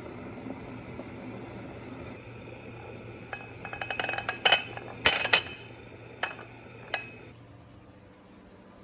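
Glass dishware clinking against glass or cutlery: a run of quick light clinks, three louder ringing clinks about four to five seconds in, then two single clinks, over a steady low hum.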